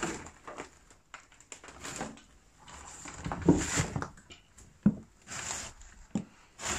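Irregular knocks, scrapes and rustles of people moving about through scattered debris, with two sharper knocks near the middle.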